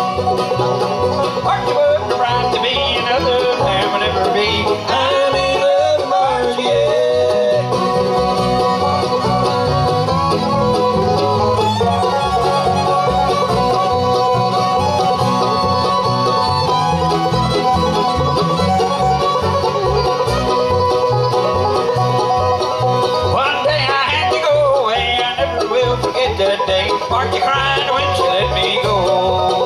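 Live bluegrass band playing with banjo, fiddle, mandolin, acoustic guitar and upright bass, over a steady beat.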